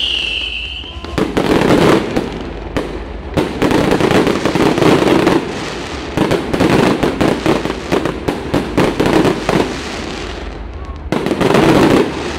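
Fireworks display. A whistle falls in pitch and fades in the first second, then comes a dense stretch of rapid bangs and crackling as shells burst overhead. It eases off briefly about ten seconds in, then another loud flurry comes near the end.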